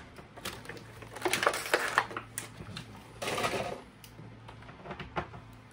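Hands handling a plastic action figure and its parts: a run of light plastic clicks and taps, with two short spells of rustling, one about a second in and one a little past three seconds in.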